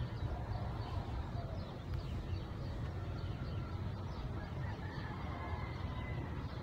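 Faint, scattered short bird chirps over a steady low background rumble.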